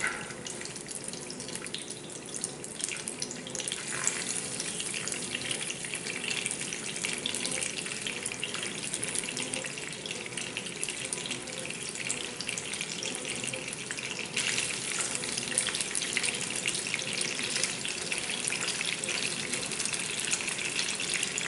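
Pieces of blacknose shark frying in a hot oil and butter mix in a skillet: a steady sizzle with small crackling pops, louder about two-thirds of the way through.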